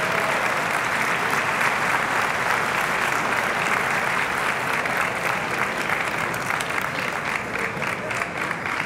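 Audience applauding steadily: a dense, continuous patter of many hands clapping.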